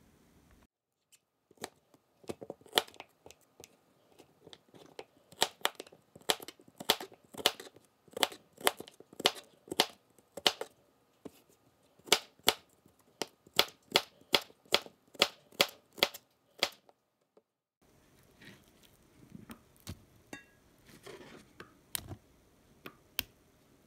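A kitchen knife chopping peeled cucumber on a plastic cutting board: sharp, uneven chops about two a second that stop abruptly. Softer knocks and rustling follow near the end.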